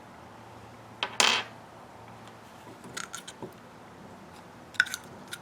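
Small metal parts and tools being handled on a workbench: a short clatter about a second in, then a few light metallic clicks and taps, the last ones with a brief ring.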